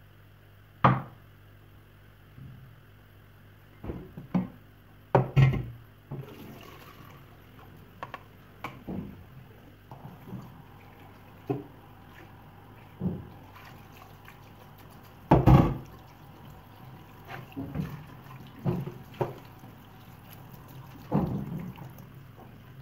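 Irregular knocks and clatter of a wooden spoon, a plastic bowl and a steel pot against a stainless steel sink as chopped rape greens are rinsed, with a few louder bangs. About ten seconds in, the tap starts running and water pours over the greens.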